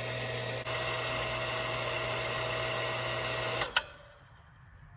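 Shallow-well water pump motor running steadily as it builds line pressure, then the pressure switch cuts it off with a sharp click a little under four seconds in and the hum stops.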